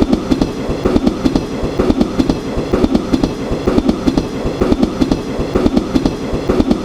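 Train rolling along on its track, the wheels clattering over rail joints in a steady, repeating clickety-clack, about one group of knocks a second.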